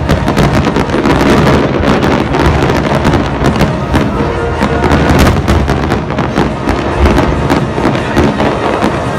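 Dense barrage of aerial firework shells bursting and crackling, many bangs in quick succession over a continuous rumble, with music playing underneath.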